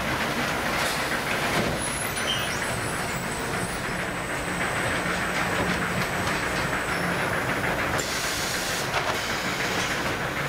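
Automatic bag palletizer and its conveyors running: a steady mechanical rattle and hum, with a short hiss about eight seconds in.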